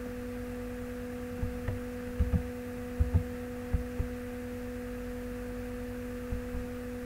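Steady electrical hum at two pitches, one low and one an octave above. Over it come a few soft, short knocks between about one and a half and four seconds in, and one more near the end, from typing on a computer keyboard and clicking a mouse.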